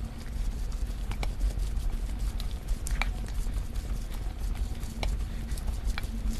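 A spoon mixing bibimbap, rice with tuna, flying fish roe and chopped vegetables in gochujang, in a stainless steel bowl: a continuous wet, mushy stirring and scraping noise with a low rumble. It is broken by a few sharp clinks of the spoon against the metal bowl, the loudest about three seconds in.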